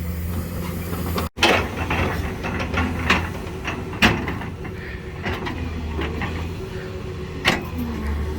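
A truck engine idling steadily, with several sharp knocks over it.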